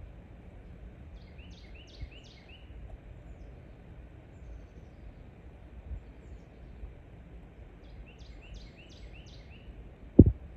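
Outdoor ambience with a low steady rumble, through which a bird twice gives a quick run of four or five falling chirps. A single sharp knock sounds near the end.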